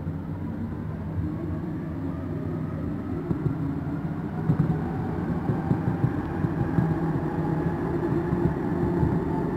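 Metro train accelerating on rails: a rumble with a rising traction-motor whine, growing louder, with scattered knocks from the wheels and track.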